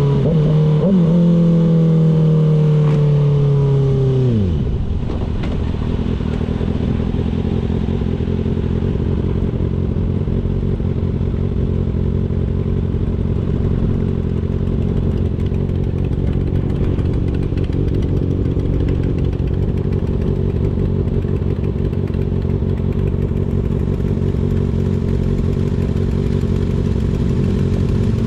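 Kawasaki ZX-6R's inline-four engine coming off the throttle, its pitch falling for about four seconds. It then runs steadily at low revs.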